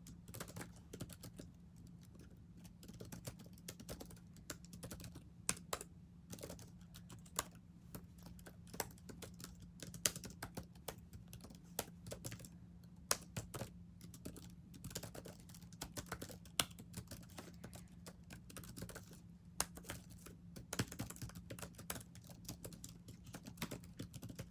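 Typing on a computer keyboard: quick, irregular key clicks in flurries with brief pauses, over a steady low hum.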